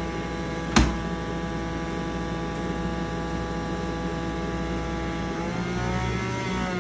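Electric centrifugal juicer motor running with a steady whine while celery is pushed down its chute, with a single sharp knock about a second in. Near the end the motor's pitch shifts.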